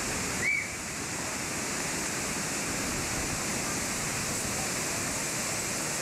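Steady rush of water from the Manavgat Waterfall's cascades, with a brief high-pitched cry about half a second in.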